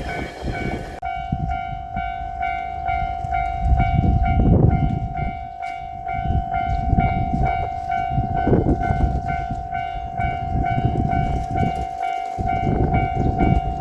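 Railway level-crossing alarm ringing its steady repeating electronic bell while a JR Shikoku 8000-series electric train runs over the crossing. The wheels rumble and clatter across rail joints, swelling and easing as the cars go by.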